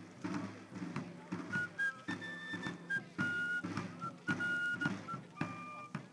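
Fife and field drums playing a march. The drums beat a steady rhythm throughout, and the fife's shrill melody comes in about a second and a half in.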